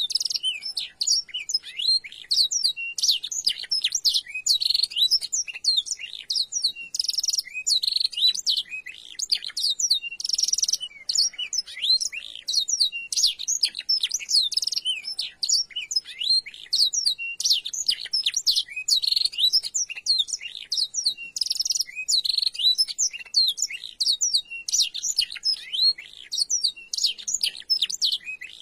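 Domestic canary singing a rapid, almost unbroken song of high chirps and trills, a tutor song for young canaries filled with blackthroat phrases.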